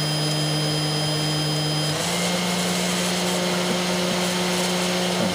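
48 V Quiet Cut spindle motor on a CNC router running free, not cutting, with a steady hum. About two seconds in its pitch steps up a little as it is brought to 10,000 RPM, the top speed that the TinyG controller allows.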